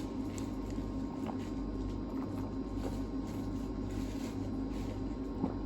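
Steady machine hum in a small room, with a few faint light clicks.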